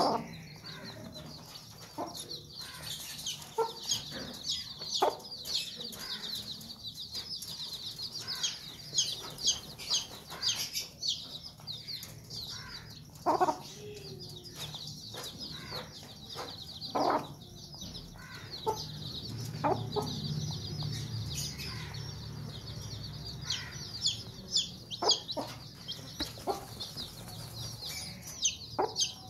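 A brood of chicks peeping all the time in rapid high chirps, with a mother hen clucking in short low notes among them.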